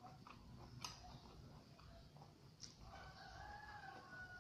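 A rooster crows faintly once, a single call lasting over a second near the end. Before it, a couple of light clicks of a metal spoon against a glass plate.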